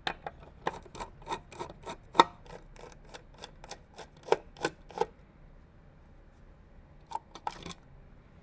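A run of sharp, light clicks and taps from hands handling PC parts, about three a second for five seconds, then a short cluster of clicks near the end.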